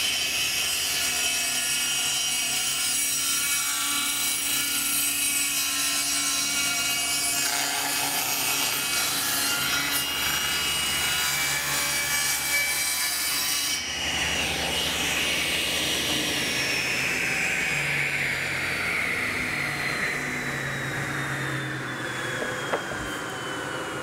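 Table saw cutting a 45-degree miter through a wooden crown molding fed along the fence, with a dense, steady sawing noise. About 14 seconds in the cut ends and the saw keeps running with a slowly falling whine, the sound of the blade winding down.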